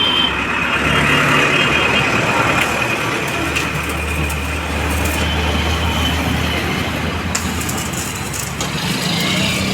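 Stick-welding arc crackling and sizzling steadily as the electrode burns, with a low steady hum underneath and a few sharper pops.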